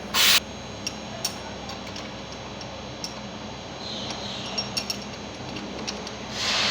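Semi-automatic ROPP capping machine sealing glass bottles: a short sharp hiss just after the start and another near the end, with scattered light clicks and glassy clinks between over a steady machine hum.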